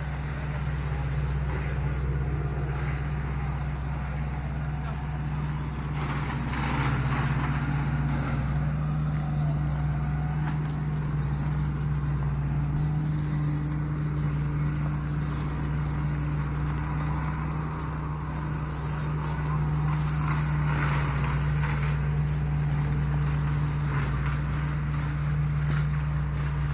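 A tractor engine running with a steady low drone as the tractor drives along a field track, with a few brief louder bursts of noise about six and twenty seconds in.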